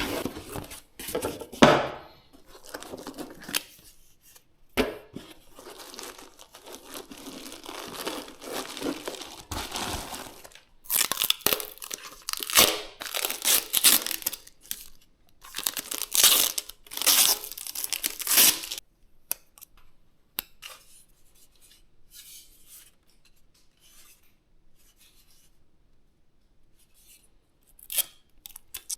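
Plastic film being peeled and crinkled by hand, in repeated noisy tearing and rustling bursts. After about nineteen seconds it gives way to a few light clicks and taps.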